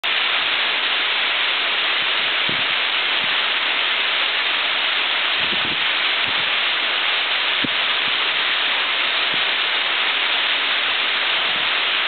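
Waterfall: water pouring down a rock face and splashing, a steady rush.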